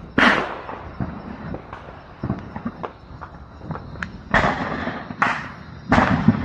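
New Year's fireworks and firecrackers going off all around: a dense scatter of distant cracks and bangs, like thousands of drums, with louder booms just after the start and three more in the last two seconds.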